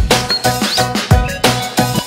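Background music with a steady beat: a deep kick drum about twice a second under held chords, with no singing.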